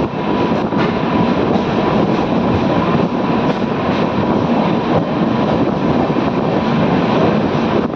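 Express passenger train running at speed, heard from inside the coach as a steady rumble and rush of wheel and track noise.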